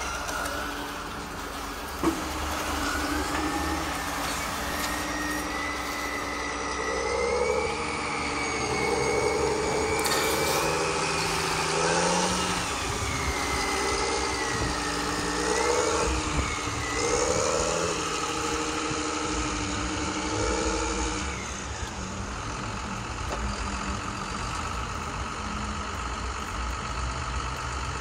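Heavy truck engine sound revving up and down, with a whine that rises and falls in pitch, over a steady low rumble; a sharp click sounds about two seconds in, and the revving fades out near the end.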